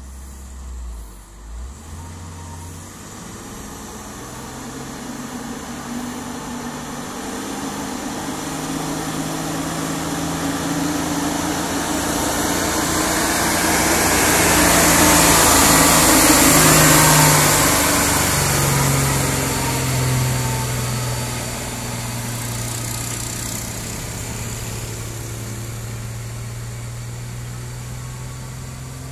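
Diesel engine of a truck loaded high with sugarcane, labouring up a steep hill climb: a low, steady engine note that grows louder as the truck approaches, is loudest as it passes about halfway through, and fades as it pulls away.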